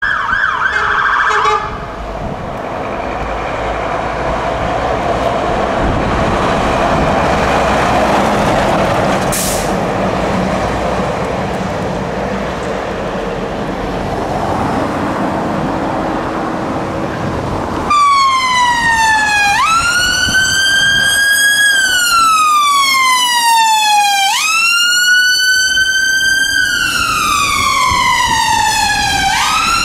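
Road and engine noise with no clear tone for the first half. Then, about eighteen seconds in, an ambulance's siren starts wailing: each cycle leaps up in pitch and slides slowly down, about every five seconds.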